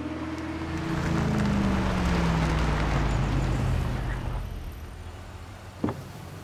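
A V8 car pulling up: the engine note falls in pitch as it slows, then settles to a quieter idle. A short click comes near the end.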